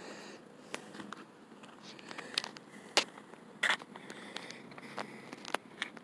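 Footsteps on asphalt with scattered sharp clicks and scrapes at an irregular pace.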